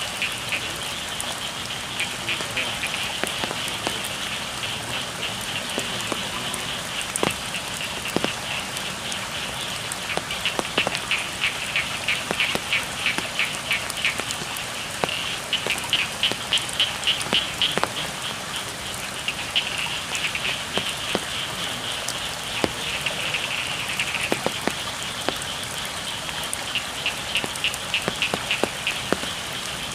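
Steady rain falling, with frogs calling in fast, evenly pulsed trains that come and go in bouts, and a few scattered sharp taps.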